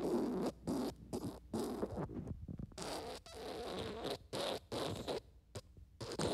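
Wet fart sound effect: an irregular string of short, noisy bursts, with one longer unbroken stretch about halfway through.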